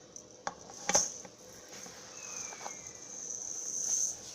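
A few sharp clicks against a cup, the loudest about a second in, then a high, steady hiss that swells toward the end as small loose contents are poured into the cup.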